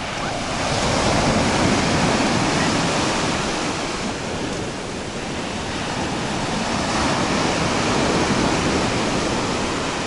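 Black Sea surf breaking and washing up a dark sand shore, swelling twice about six seconds apart as each wave rushes in.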